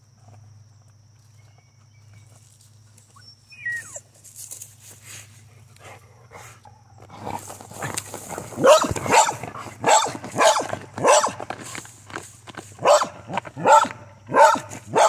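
Dog barking at a chipmunk's burrow under a tree: after a quieter spell of scratching and sniffing in the dirt, a rapid string of short barks begins about halfway in, roughly two a second, close to the microphone.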